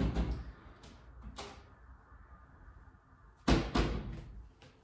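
Wooden kitchen cabinet door being opened and shut while a plastic food container is taken out: a few sharp knocks and clatters, the loudest pair about three and a half seconds in.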